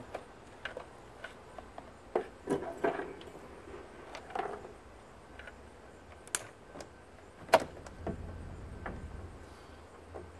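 Foot massager being taken apart by hand with a screwdriver: scattered clicks, knocks and rattles of its plastic housing and parts, the sharpest a little after six and seven and a half seconds in.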